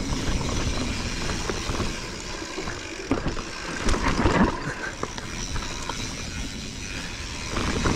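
Mountain bike riding fast down a dirt trail: a steady rush of wind and tyre noise with knocks and rattles from the bike over bumps, louder for a moment about four seconds in.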